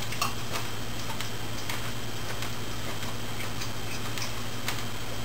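Eating soup with a spoon from a plastic container: small, irregular clicks and ticks a few times a second, over a steady low hum.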